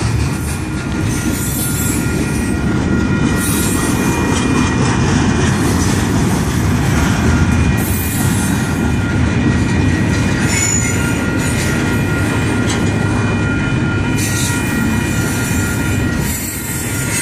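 Double-stack intermodal freight train's well cars rolling steadily through a grade crossing, a continuous heavy rumble of steel wheels on rail with a few steady high tones over it. The crossing signal's bell rings throughout the activation.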